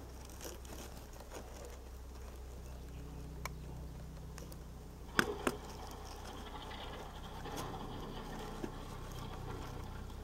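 Ford F-250 pickup's engine running as it plows snow, a low steady hum that grows a little fuller about two and a half seconds in. A few sharp clicks, two of them close together about five seconds in.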